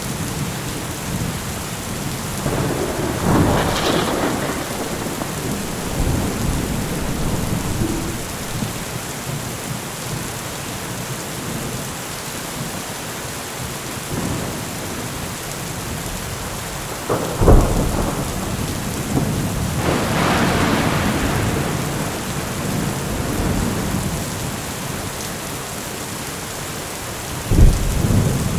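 Heavy rain pouring steadily through a thunderstorm, with thunder rumbling several times. Sharp, loud cracks of thunder come about 17 seconds in and again near the end.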